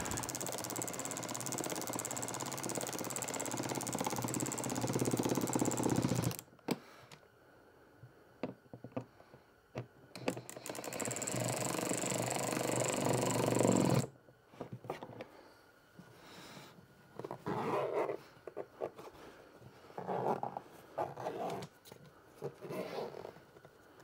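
Impact driver hammering as it runs fasteners down tight, in two long runs of about six and four seconds with a pause between. Scattered quieter clicks and handling knocks follow in the second half.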